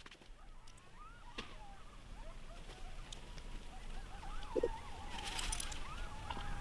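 Distant coyotes howling and yipping, many wavering cries overlapping, growing louder toward the end.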